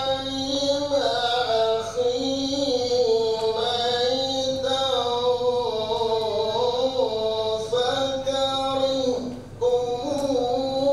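A man reciting the Quran in the melodic tilawah style: long, drawn-out phrases sung in one voice, with the pitch sliding and ornamented within each phrase. There is a short pause for breath about nine seconds in.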